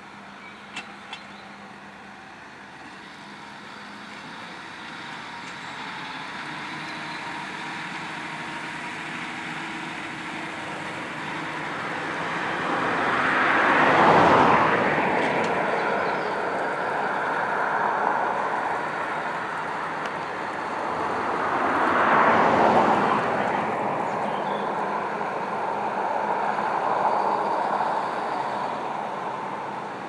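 John Deere 6250R tractor's six-cylinder diesel engine running under load as it pulls a six-furrow plough through the soil, growing louder through the first half. Two louder swells of noise come about halfway and about two-thirds of the way through.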